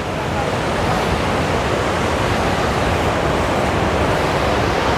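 Large waterfall: a river's water rushing steadily over the falls, an even, unbroken noise.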